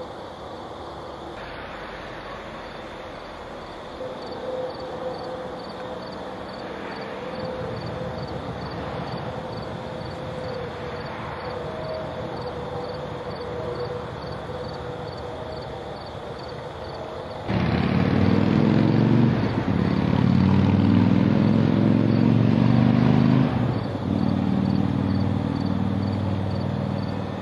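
Low background noise, then about two-thirds of the way in a loud low engine rumble starts suddenly and runs on, easing a little near the end: a passing vehicle.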